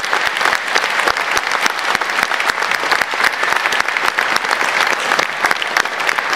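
Audience applauding, many hands clapping at an even, steady density.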